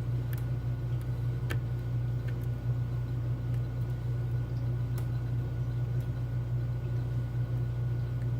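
A few faint clicks of lock picks working the pins of a Medeco Keymark lock, the clearest about a second and a half in and another at about five seconds. A steady low hum sits under them throughout.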